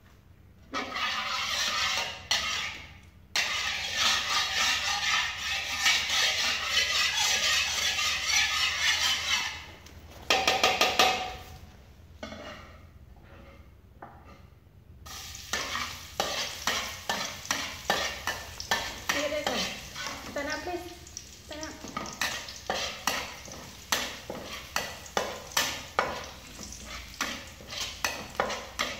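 Food sizzling in hot oil in a metal wok for several seconds, with a loud scrape near the middle. After a short lull, a metal spatula scrapes and stirs in the wok in quick repeated strokes, about two a second, over a softer sizzle.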